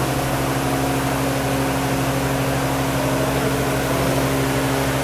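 Steady low mechanical hum from a running machine, with a slight even pulse.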